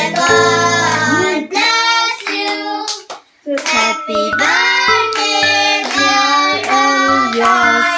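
Children singing a birthday song to a musical backing, with hand clapping along. The singing breaks off briefly about three seconds in.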